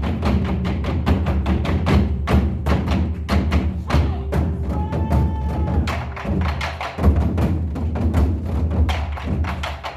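Korean buk drums beaten in a fast, steady rhythm of several strikes a second, with a short held tone sounding about five seconds in.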